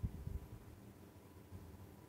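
Near silence: faint room tone with a thin, steady high tone, and a few soft low thumps in the first half second.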